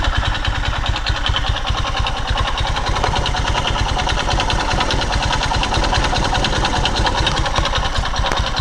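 Skymoto Pegas 110 motorcycle's small single-cylinder engine idling steadily with an even, rhythmic knocking, which the owner takes for a worn connecting rod.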